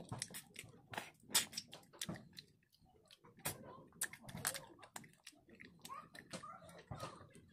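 Close-up eating of cooked snails in the shell: many short, sharp mouth clicks and smacks at an irregular pace as the snails are sucked from their shells and chewed.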